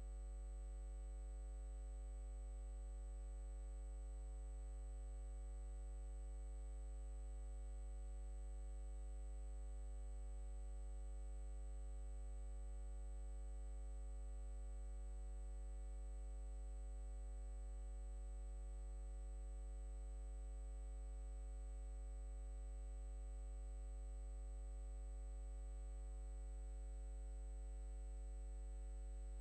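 Steady electrical hum with a faint high-pitched whine, unchanging throughout; no engine or water sound can be made out.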